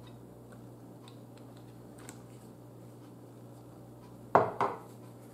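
A glass hot sauce bottle set down on a cloth-covered table: two short knocks close together near the end, over a faint steady room hum with a few light ticks.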